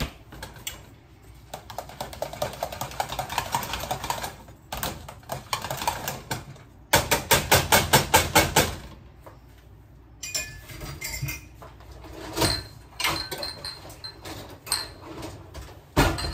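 A spoon stirring thick mashed potatoes in a stainless steel pot, scraping and tapping against the pot. About halfway through it knocks against the pot about ten times in a quick, even run, about five knocks a second. Scattered clicks and taps follow.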